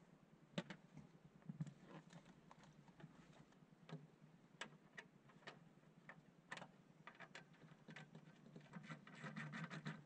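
Faint, scattered clicks and taps of a hand ratchet and socket on an earthing-point nut, with wiring being handled, and a quick run of ratchet clicks near the end.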